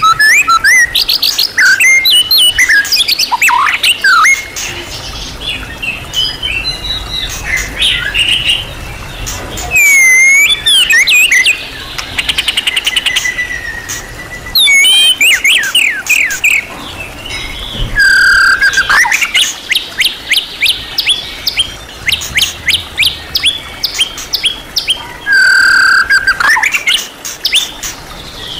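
White-rumped shama (murai batu) singing a loud, varied song: fast chattering trills and runs of rapid notes mixed with whistled rising and falling glides and a few strong held notes. The shama is packing its song with many different phrases.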